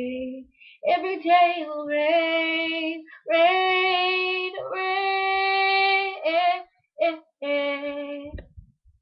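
A young woman singing a pop ballad unaccompanied, in several phrases with long held notes, her voice a little stuffy from a blocked nose. The singing stops near the end, followed by a brief low bump.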